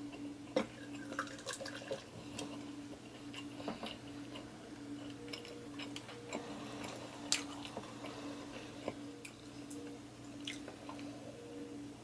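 Carbonated soda poured from a plastic bottle into a glass mug and fizzing, with clinks and knocks of the glass and bottle and small handling and eating clicks. A faint steady hum runs underneath.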